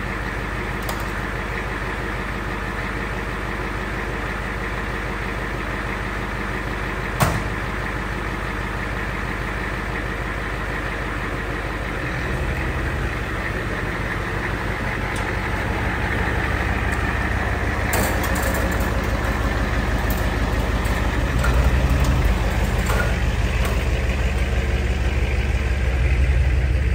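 A 1970s Ford F-250 truck's engine idling, with a single sharp knock about seven seconds in. From about twelve seconds in the engine grows louder and pulls harder as the truck drives off slowly in first gear.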